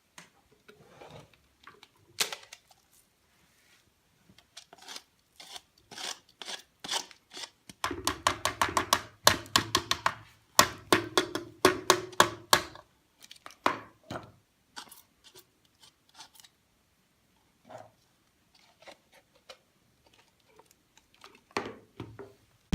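A string of quick clicks and rattles, sparse at first, then fast and dense through the middle with a low hum under the busiest stretch, then sparse again.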